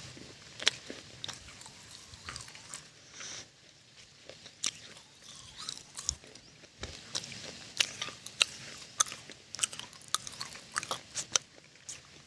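Close-miked crunchy biting and chewing of something hard and brittle: a run of irregular sharp crackles and cracks.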